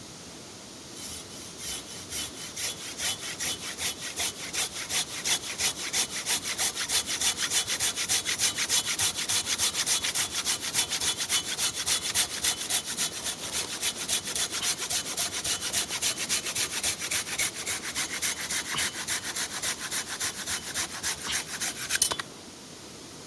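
Silky folding handsaw cutting through a log with fast, even back-and-forth strokes, the teeth rasping through the wood; the sawing starts about a second in and stops abruptly near the end.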